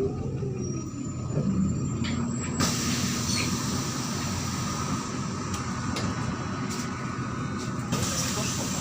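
MAZ-103 city bus underway: steady engine and road noise with a low hum. A higher hiss joins in sharply about two and a half seconds in and carries on.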